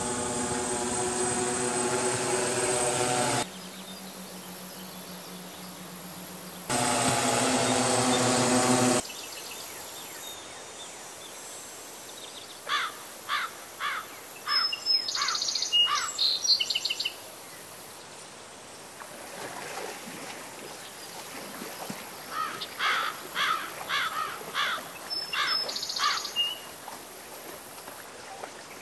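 An octocopter's propellers drone in flight as a steady hum of several pitched tones. The sound cuts off abruptly about three and a half seconds in, comes back for a couple of seconds, then stops about nine seconds in. After that there is quieter outdoor ambience, with two spells of quick, repeated bird chirps.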